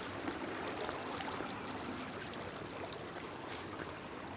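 Steady outdoor background hiss with no clear events, and a faint steady high tone above it.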